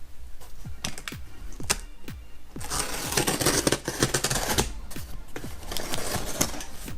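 Background music with a steady beat of short thumps and clicks, and a swell of hiss in the middle.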